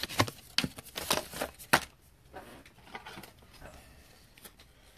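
Trading cards being handled by hand: a quick run of sharp taps, clicks and rustles in the first two seconds, then only faint rustling.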